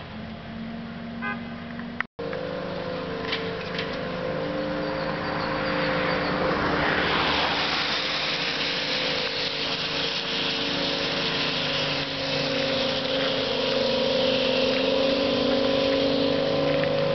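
Ikarus 280T articulated trolleybus running in on a wet road: a steady electric whine from its drive over the hiss of tyres on wet tarmac, growing louder as it comes closer. The sound cuts out for a moment about two seconds in.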